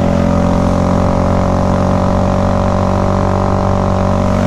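Honda Grom's small single-cylinder four-stroke engine running at a steady cruise, with its drone easing slightly lower in pitch, over wind and road noise.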